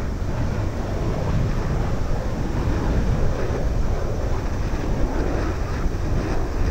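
Wind buffeting the microphone in a steady low rumble, mixed with the distant jet-engine noise of a Boeing 737-800 on final approach, flaring just before touchdown.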